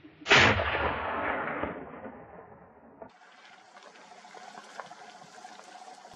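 A single rifle shot, sudden and loud, about a third of a second in. Its report rolls and fades for about a second and a half, echoing off the hillside. After about three seconds only a faint steady background hiss remains.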